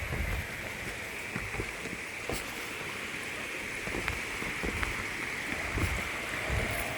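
Steady outdoor hiss with irregular low thumps of wind buffeting the microphone.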